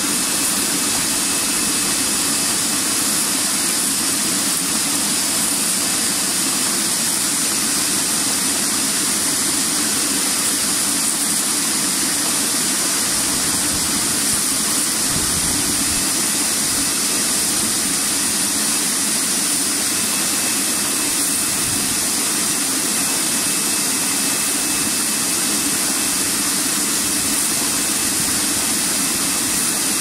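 Commercial bubble-type vegetable washing machine running: a steady rush and hiss of water churned by air bubbles and sprayed from rows of nozzles, over a constant machine drone.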